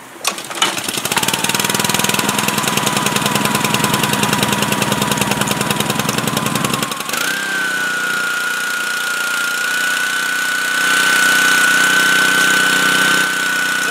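Homelite 2700 PSI gas pressure washer engine starting up about half a second in and running with a fast pulsing beat. About seven seconds in the sound changes to a steadier run with a high steady whine. Its pump gives only garden-hose pressure with the trigger on or off: the pump is shot, which the owner puts down to cold storage.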